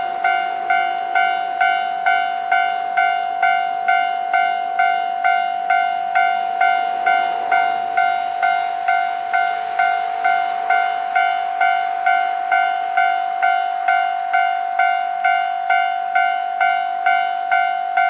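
Japanese railway level-crossing warning bell ringing steadily, a repeated electronic ding about twice a second, signalling that a train is approaching and the barriers are down.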